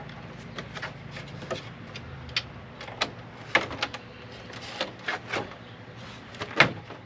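VW New Beetle interior door panel being worked onto the door: irregular clicks and knocks of plastic against the door, the loudest a sharp knock near the end.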